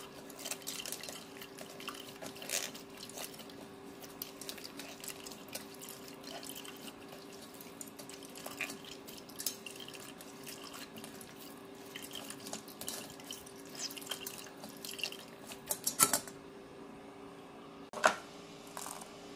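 Juice dripping and trickling through a stainless-steel mesh sieve as a hand squeezes blended ginger pulp in it, with small wet crackles over a faint steady hum. A couple of sharp knocks come near the end.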